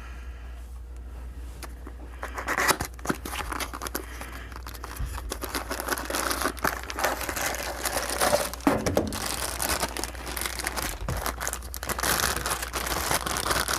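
Plastic packaging being handled, crinkling and rustling with many small crackles, starting about two and a half seconds in after a quiet opening.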